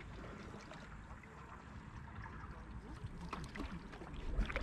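Water lapping and trickling along the hull of a folding canoe under paddle, faint, with a few soft splashes and knocks that grow a little louder toward the end.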